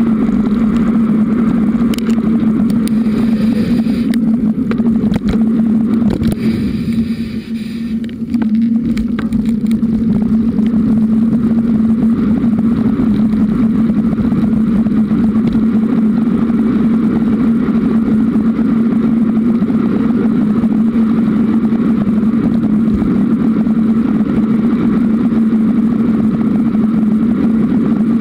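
Riding noise of a Giant Roam 2 hybrid bicycle picked up through the camera mount: a loud, steady hum with rattle, dipping briefly about seven seconds in.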